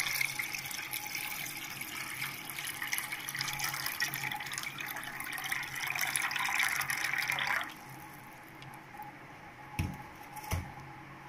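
Rice-washing water poured in a stream from a bowl of soaked rice into a metal pot already full of cloudy rice water, splashing steadily. The pour stops about three-quarters of the way through, and two light knocks follow.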